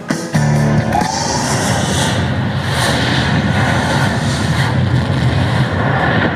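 Video slot machine sound effects over game music: a short note, then a rising tone about a second in, followed by a dense noisy effect lasting about five seconds as the bonus round starts.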